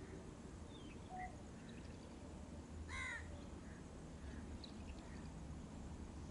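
A crow caws once, briefly, about three seconds in. Faint short chirps of other birds and a low steady background rumble lie around it.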